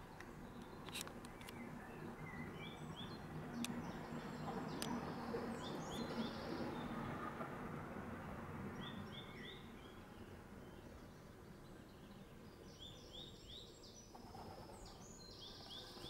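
Small birds chirping in short clusters of quick, high, falling notes over a background of outdoor noise that grows louder for several seconds and then fades. A few faint clicks come in the first few seconds.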